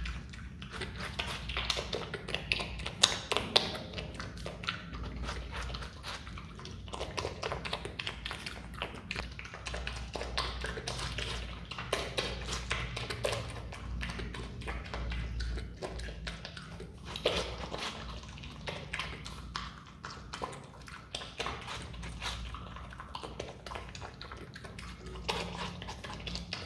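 Himalayan marmot biting and chewing the red flesh of a watermelon slice, close up: a quick, irregular run of crunching clicks.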